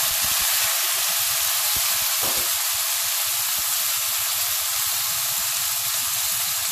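Chopped tomatoes and browned onions frying in hot oil in a kadai: a steady, even sizzle just after the wet tomatoes hit the oil.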